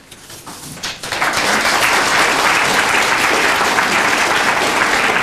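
Audience applauding, a few scattered claps swelling into full, steady applause about a second in.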